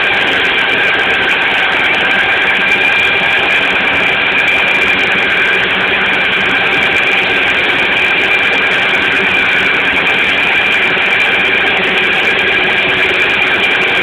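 Walker riding mower's engine running steadily while mowing, with a steady high whine on top.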